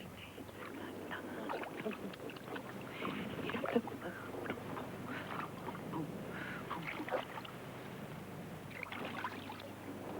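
Bathwater sloshing, with small irregular splashes and knocks, heard through muffled VHS-quality sound.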